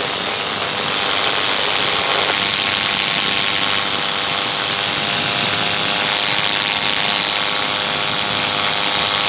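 Powered paraglider (paramotor) engine and propeller running steadily in flight, with a constant hum and a strong even hiss.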